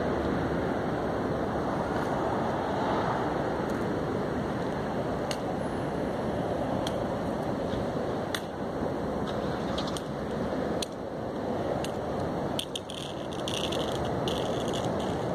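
Steady wind noise buffeting the microphone, with scattered faint clicks and ticks in the second half.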